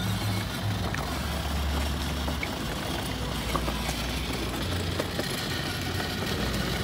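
Battery-powered ride-on toy car driving along a concrete path: a steady whir from its electric motor and the rumble of its hard plastic wheels on the pavement.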